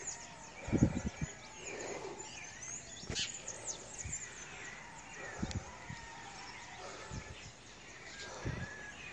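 Several birds chirping, many short rising and falling calls overlapping, with a few dull low thumps, the loudest about a second in.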